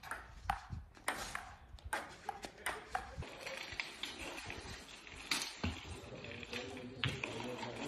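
Table tennis rally: the plastic ball clicks sharply off paddles and table about twice a second for the first three seconds. After that comes a faint outdoor haze with a few scattered knocks.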